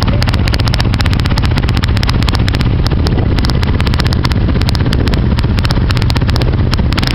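Racing quad's engine running loud and steady, with no rise or fall in revs.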